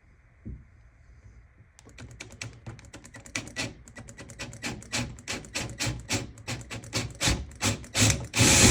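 Short scraping strokes on wood, several a second, growing louder and quicker, then an electric drill starts boring into the wood near the end and runs loudly.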